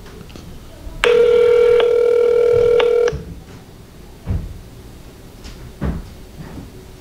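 Telephone ringback tone over a phone's speakerphone while the call waits to be transferred: one steady ring of about two seconds starting about a second in, then a gap of about four seconds before the next ring starts at the end. A couple of soft thumps fall in the gap.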